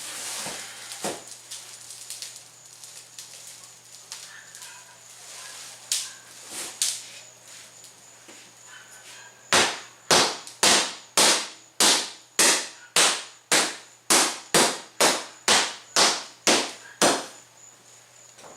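Repeated heavy blows breaking up a duct-taped car windshield: a few scattered knocks, then a steady run of about fourteen strikes, roughly two a second, in the second half. The laminated glass cracks but holds together rather than shattering.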